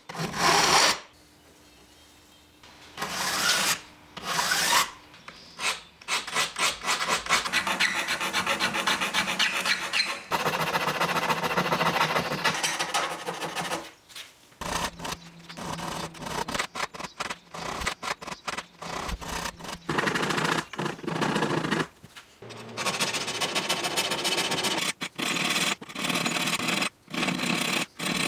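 Hand file sharpening the steel teeth of a Japanese maebiki saw: runs of quick, rasping file strokes, broken by a few short pauses.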